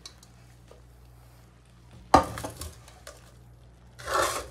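Stainless steel cooking pot clanking against metal: one sharp clank about two seconds in, followed by a couple of lighter clicks. A short rustling noise near the end, over a low steady hum.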